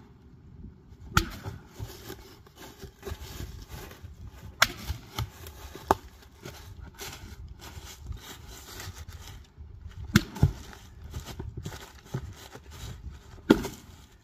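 A Fiskars X27 splitting axe chopping into a 20-inch red oak round: about six sharp wooden strikes a few seconds apart, two of them in quick succession near the middle, as slabs split off the edge of the round.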